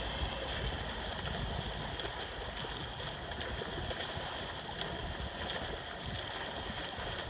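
Steady rushing noise of wind on the microphone and water on open sea, with no clear engine tone.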